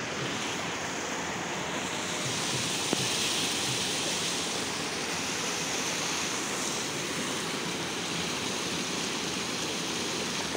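Small waterfall on a mountain stream: water rushing and splashing in a steady, even wash.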